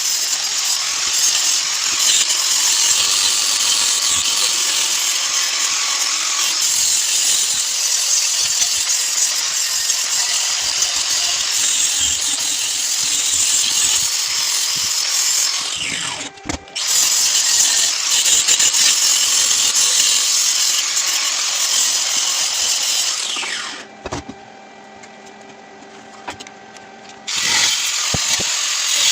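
Angle grinder working on steel, a harsh steady hiss of grinding. It breaks off briefly about 16 seconds in, winds down with a falling pitch near 24 seconds, and starts again near the end.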